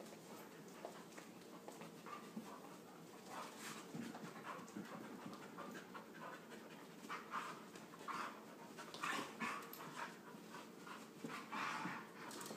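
A dog panting, a run of breathy puffs at irregular spacing, several of them louder in the second half.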